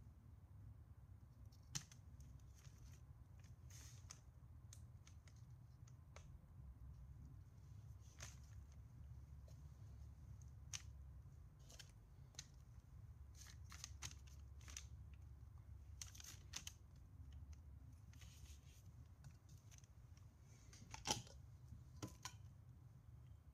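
Near silence with faint small clicks and rustles from small firework shell hemispheres and cardboard tubes being handled on a paper-covered bench, over a steady low hum. A sharper click comes about 21 seconds in.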